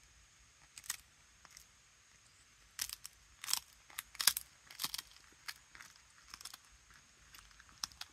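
A cat crunching on a hard dried meat treat: irregular sharp crunches, one about a second in, the loudest run in the middle, then softer ones.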